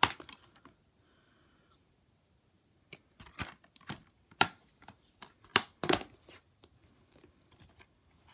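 Plastic DVD cases handled by hand: a sharp click at the start, then after a short pause a run of separate clicks and taps as the cases are moved and turned over.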